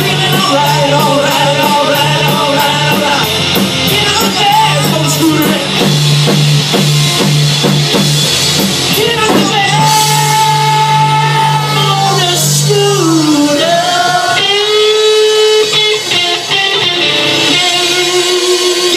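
Loud rock music with electric guitar and drums, the guitar notes bending and sliding in pitch.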